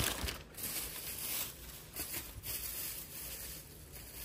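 Shopping bags rustling and crinkling as purchases are handled, in uneven surges that ease off toward the end.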